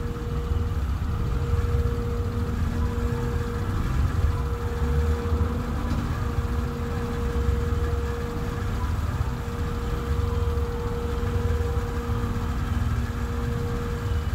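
Steady low mechanical rumble with a constant droning hum, like an engine or machine running.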